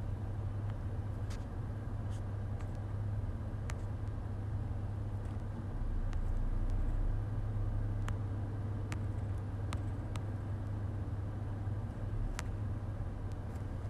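Steady low hum of the Honda Ridgeline idling, heard from inside the cab, swelling slightly about six seconds in, with a few faint clicks.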